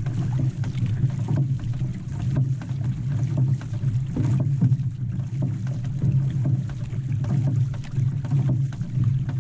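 Outrigger canoe under paddle: water rushing and splashing along the hull as the crew's paddles dig in stroke after stroke, over a steady low rumble.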